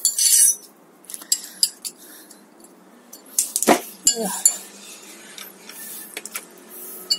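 Metal bike hand tools clinking, rattling and scraping as they are handled and fitted to the bicycle, with a cluster of louder clinks near the start and again about four seconds in.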